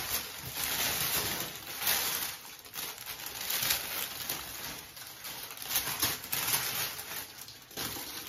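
Crinkling and rustling of white packaging wrap being handled and pulled open, in repeated irregular surges.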